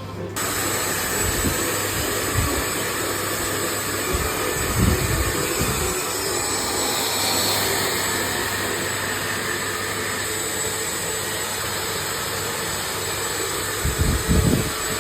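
Hand-held hair dryer switched on and blowing steadily, with a few low thuds now and then.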